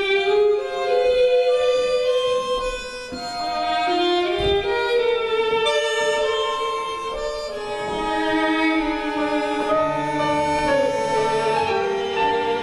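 Tango music with a violin carrying the melody in long held notes that step and slide between pitches.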